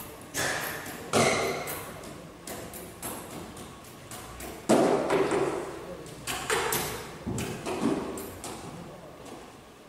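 Repeated banging on a wooden stage-set door: a dozen or so uneven thuds in clusters, echoing in the hall, the loudest about a second in and again near the middle.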